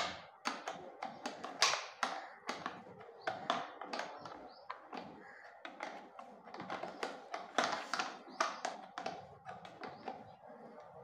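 Irregular metallic clicks and taps of a hand tool working the nuts that hold a motorcycle speedometer to its bracket, with a sharp knock right at the start.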